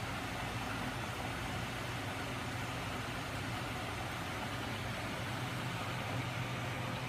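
Home-built magnet engine rig running, driven by a 12 V electric motor, with its crankshaft, flywheel and small DC generators spinning: a steady low mechanical hum that stays even throughout.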